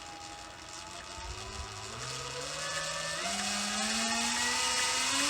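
Sur Ron electric dirt bike's motor, jackshaft and chain spinning up, a whine that rises in pitch in steps and grows louder. It runs very quiet with no clicking, its jackshaft bearings freshly replaced.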